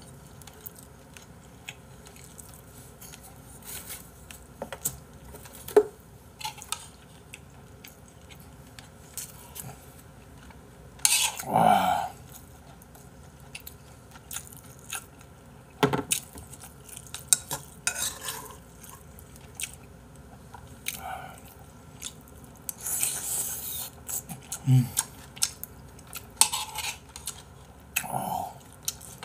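Eating sounds: chopsticks and a metal spoon clinking and scraping against ceramic bowls of braised chicken stew and rice, with chewing in between. The sounds come as scattered short clicks and knocks, and a louder spell comes twice.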